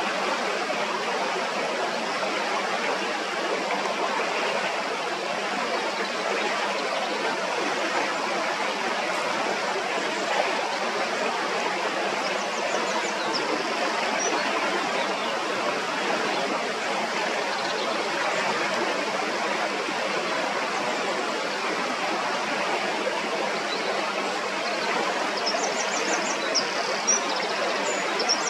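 Shallow stream running steadily over stones, with short runs of thin, high bird notes about halfway through and again near the end.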